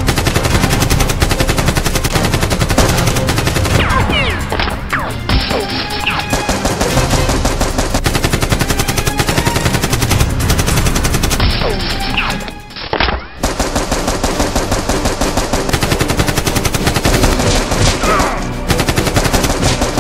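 Dubbed-in automatic gunfire sound effects: continuous rapid bursts of machine-gun shots, briefly breaking off about two-thirds of the way through.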